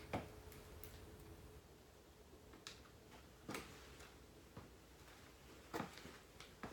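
Near silence in a small room, broken by a handful of faint, scattered taps and knocks.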